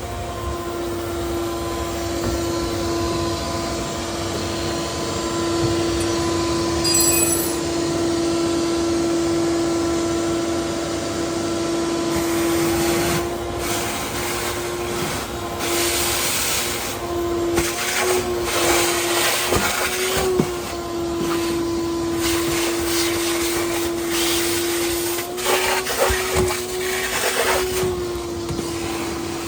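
A small electric motor running with a steady hum, joined after about twelve seconds by spells of rushing hiss and a few clicks.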